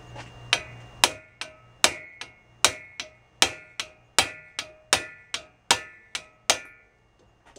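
Steel hammer blows, about sixteen at a steady pace of two or three a second, each with a short metallic ring, on a hand driver set in a seized, slotted stud in an air-cooled VW Beetle cylinder head. The stud does not come loose. A low hum fades out about a second in.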